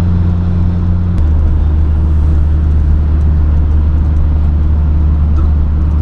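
Car engine and road noise heard from inside the cabin while cruising on a highway: a steady low drone whose pitch drops suddenly about a second in.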